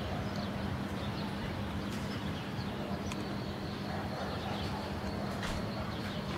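Steady outdoor city ambience: a low hum of distant traffic with faint bird chirps over it.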